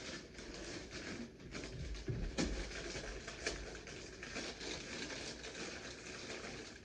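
Rustling and small knocks as things are handled and moved about, with a heavier thump a little over two seconds in.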